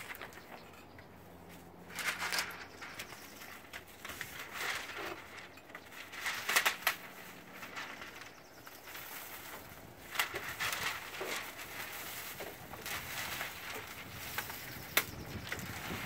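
Masking paper and plastic sheeting rustling and crinkling in irregular bursts as it is handled and pressed into place, with a sharp click near the end.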